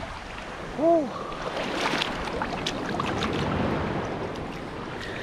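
Shallow sea surf washing and water splashing around a person wading in, with scattered sharp splash ticks. About a second in comes one short vocal exclamation, the loudest sound.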